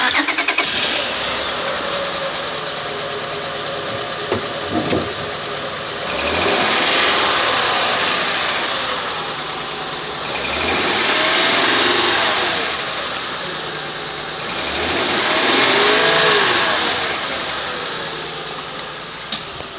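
2005 Honda Pilot's 3.5-litre V6 starting up, then idling and revved three times, each rev rising and falling back to idle.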